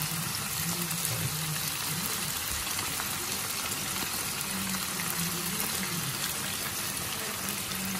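Pork cubes, onions and garlic sizzling steadily in a hot frying pan as thick tomato sauce is squeezed in from a pouch.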